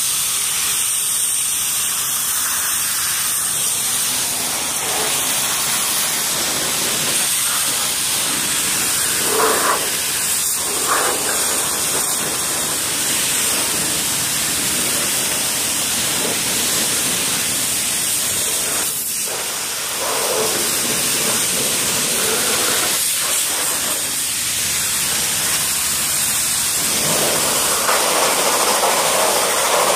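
Pressure washer spraying a hard jet of water against an RC car's chassis: a steady, loud hiss, dipping briefly about twenty seconds in.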